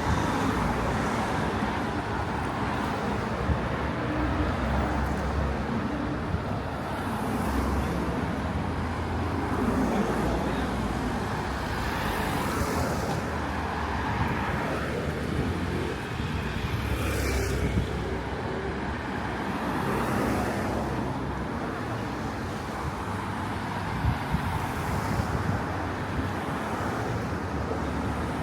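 Outdoor ambience of steady road-traffic rumble, swelling and fading as vehicles pass, with a single short click near the end.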